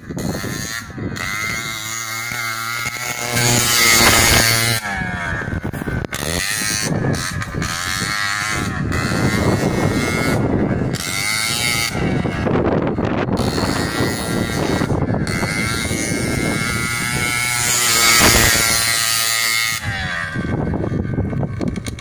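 Small engine of a motorized bicycle buzzing as it is ridden, its pitch rising and falling again and again as the rider opens and closes the throttle, loudest about four seconds in and again near eighteen seconds.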